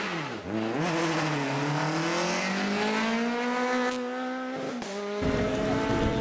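Rally car engine under hard use: the note dips and picks up again, then climbs steadily under acceleration for several seconds, with a change in the note about five seconds in.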